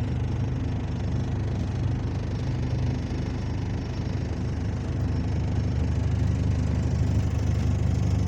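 A repair vehicle's engine running steadily at idle, a low even hum that grows a little louder in the second half.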